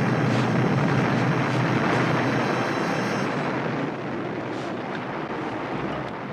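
Avalanche rumbling: a continuous, loud noise of snow crashing down the slope, easing a little about four seconds in.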